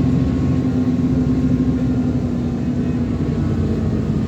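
ADL Enviro400 Trident double-decker bus's diesel engine and driveline running steadily on the move, heard from on board, with a steady hum that drops slightly in pitch near the end.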